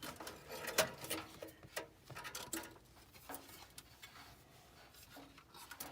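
Scattered light clicks and knocks of metal furnace blower parts being handled and fitted during reassembly, the sharpest about a second in, then fewer and softer.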